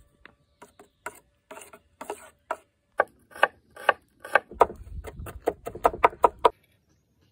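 Chef's knife mincing garlic on a wooden cutting board: a run of knife knocks on the board, scattered at first, then quick chopping at about five or six strokes a second with a dull thud of the board under it, stopping about six and a half seconds in.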